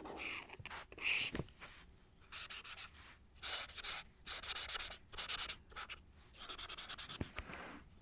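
Broad-tip marker scratching back and forth on paper in runs of quick colouring strokes, with short pauses between runs.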